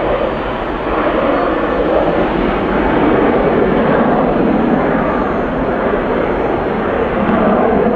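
McDonnell Douglas F-4F Phantom's twin General Electric J79 turbojets roaring in afterburner as the jet takes off and climbs away; a loud, steady roar.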